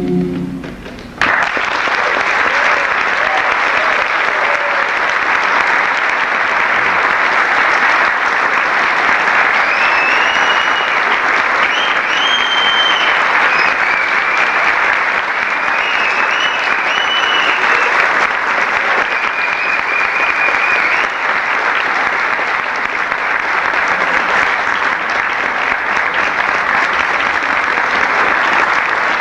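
An a cappella choir's last chord fades, and about a second in a theatre audience breaks into steady applause, with a few high whistles in the middle stretch.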